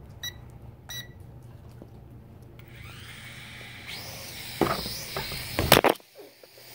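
Two short electronic beeps, then a small toy quadcopter drone's motors spinning up with a rising high whine. Several loud knocks and clatter follow near the end, then the sound drops away suddenly.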